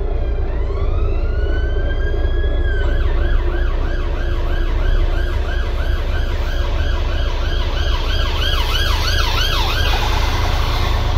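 Emergency vehicle siren heard from inside a double-decker bus. It starts with a slow wail that falls and rises, switches about three seconds in to a fast yelp of about three sweeps a second, and stops near the end. Under it, the Volvo B9TL bus's diesel engine drones steadily.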